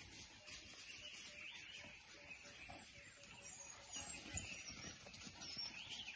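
Faint, high chirping and twittering calls, with a brief louder rustle about four seconds in.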